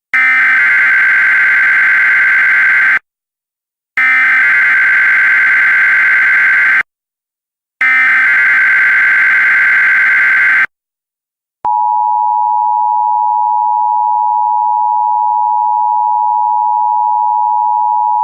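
Emergency Alert System opening: three bursts of rapid warbling data tones (the SAME header), each about three seconds long with a second of silence between them. About eleven seconds in, the steady two-pitch EAS attention tone starts and holds unchanged.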